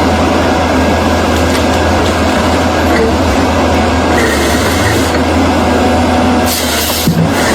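Heavy diesel earth-moving machinery, typical of a bulldozer clearing land, running steadily under load with a loud, continuous engine rumble. The sound breaks off and changes briefly about seven seconds in.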